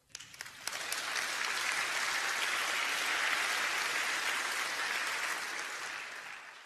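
Audience applauding, building up over the first second and dying away near the end.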